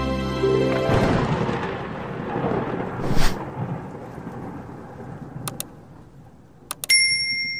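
Intro sound effects: as a music sting ends, a thunder-like rumble and crackle swells and slowly fades, with a brief whoosh about three seconds in. Near the end come a few sharp mouse clicks and a ringing bell chime for the subscribe-and-notify animation.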